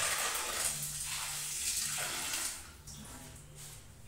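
Water running from a kitchen tap with a steady hiss, shutting off about two and a half seconds in.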